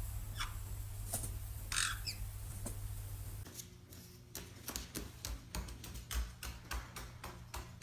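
Pet lovebird giving a few short chirps and squawks, one of them longer, followed by a quick run of sharp clicks and taps.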